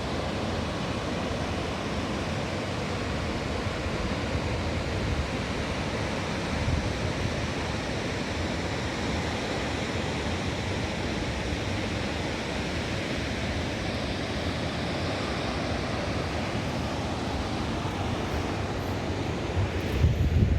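Steady rushing roar of Jog Falls, a high waterfall, with wind buffeting the microphone in low gusts near the end.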